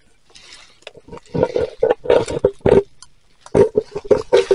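Metal detector signal tone at one steady mid pitch, sounding in repeated short bursts in two clusters, over rustling and scraping in leaf litter as a buried target is dug out.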